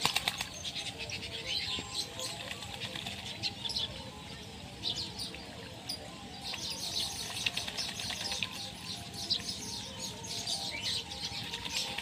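Whistling ducks bathing: water splashing and wings beating on the water, loudest at the start and again near the end, over a continuous chatter of high bird chirps.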